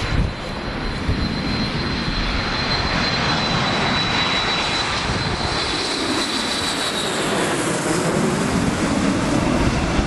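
McDonnell Douglas MD-80 airliner's twin rear-mounted Pratt & Whitney JT8D turbofans on landing approach, passing overhead: dense jet noise with a steady high whine that fades out about seven seconds in as the aircraft moves away, the low rumble growing toward the end.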